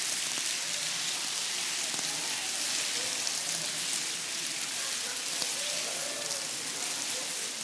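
Bubble wrap being twisted and popped by a whole roomful of people at once: a dense, steady crackle of countless small pops that sounds like the world's biggest bowl of Rice Krispies, with faint voices underneath.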